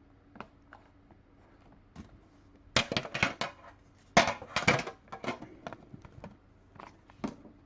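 Packaging of a sealed trading-card hobby box being torn open and handled. There are two dense bursts of crinkling and ripping about three and four and a half seconds in, among light taps and rustles.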